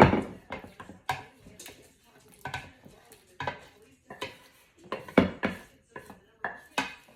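A metal spoon knocking and scraping against cookware in about a dozen irregular clanks as thick chicken pie filling is scraped out into a baking dish. The loudest knocks come at the very start and about five seconds in.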